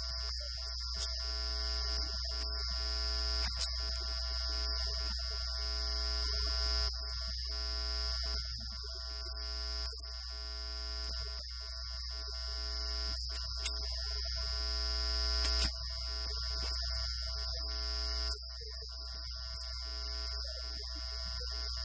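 Steady electronic buzz and low hum with several fixed tones and no audible speech, like electrical interference on the audio line.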